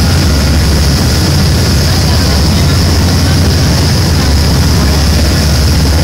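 A fast boat's engines droning steadily at speed, with the rush of the churning wake behind it.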